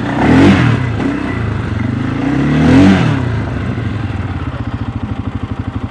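CFMOTO CForce 600 ATV's single-cylinder four-stroke engine revved twice, each rev rising and falling in pitch, then settling back to idle.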